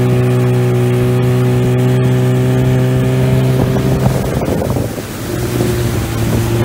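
Suzuki outboard motor running steadily, driving the boat along at speed. A little after four seconds its note dips and wavers briefly, then settles back at a slightly changed pitch.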